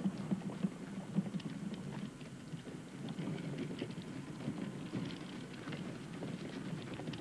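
A hand-pushed baby cart rolling along a dirt path, its wheels rattling steadily with many small irregular clicks.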